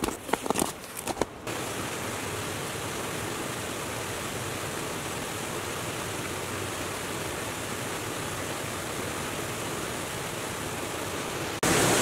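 Footsteps on a snow-covered trail for about the first second and a half, then the steady rush of a small waterfall cascading over rocks. Near the end the rush suddenly gets louder and fuller.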